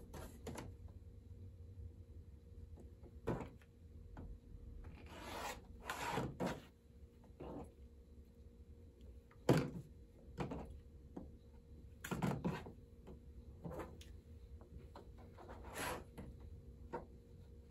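Rotary cutter slicing through stitched fabric squares along a clear quilting ruler on a cutting mat, heard as a string of short scattered scrapes and rustles with a few soft knocks as the ruler and fabric are handled; the sharpest knock comes about halfway through.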